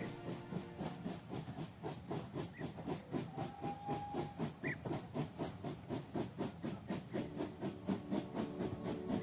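Steam locomotive running, its exhaust chuffing in quick, even beats over a steady hiss of steam.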